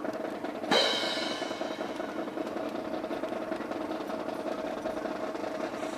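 Steady snare drum roll with a single crash about a second in, its bright metallic ring fading slowly, like a cymbal crash.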